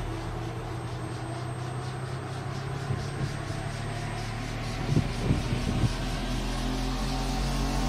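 Background music: a low, steady droning track.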